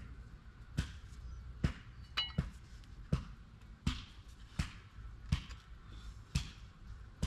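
A series of sharp knocks, about one every three-quarters of a second, with a brief metallic ring after one of them a little over two seconds in.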